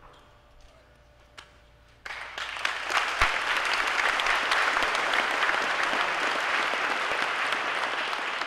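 Audience applauding, breaking out suddenly about two seconds in and tapering off near the end.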